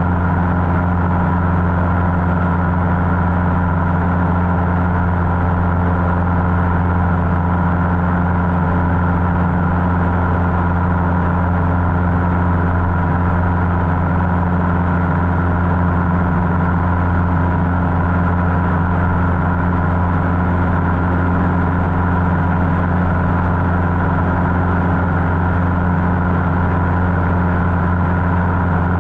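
Cessna 150's four-cylinder Continental O-200 engine and propeller droning steadily in flight, with no change in power.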